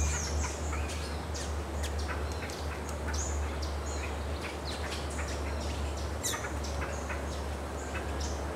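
Birds calling: a scattered run of short, high chirps and sharp whistles, some sweeping in pitch, over a low steady hum.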